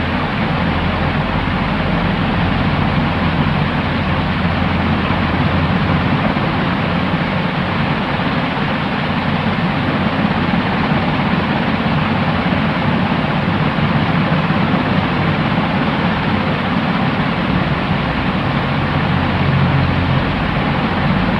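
Continuous white noise for sleep: a steady, unchanging rushing hiss with a low rumble underneath and no treble at the top.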